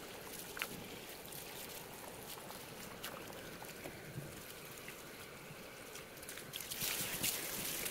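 Tap water running into a sink and over a wet Yorkshire terrier's coat as hands rub and rinse it, with small splashes; the water grows louder near the end.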